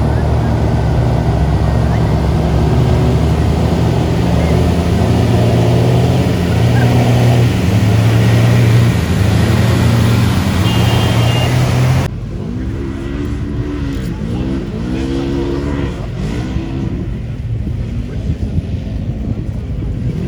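Off-road 4x4 engines running loud and steady for about twelve seconds. After an abrupt cut, a quieter engine revs up and down over and over, as a vehicle works its way through a course section.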